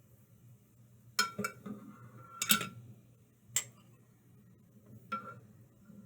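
A spoon clinking against a pot in about six sharp separate taps, the loudest about two and a half seconds in, as foam is skimmed off simmering honey syrup.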